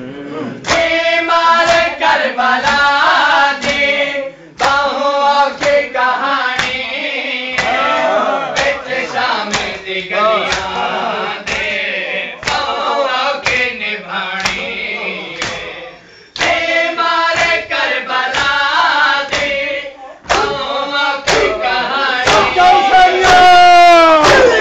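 Men chanting a Shia noha (mourning lament) together, kept in rhythm by regular hand-slaps of chest-beating matam. Near the end the crowd's voices rise and grow louder.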